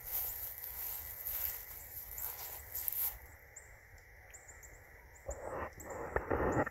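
Outdoor pond-side ambience: insects chirring in rapid high-pitched pulses, thinning to scattered chirps about three seconds in. A louder burst of rustling comes near the end.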